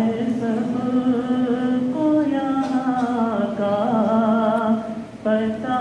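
A naat sung unaccompanied by a solo male voice through a microphone: long, held and ornamented melodic lines, with a brief pause near the end before the singing picks up again.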